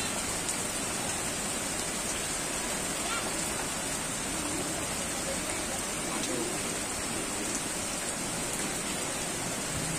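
Steady hiss of falling rain, with faint distant voices now and then.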